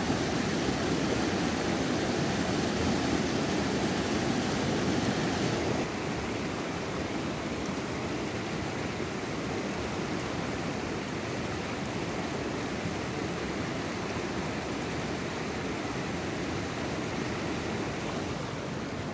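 Shallow mountain river rapids, water rushing steadily over rocks; about six seconds in the sound drops a little quieter.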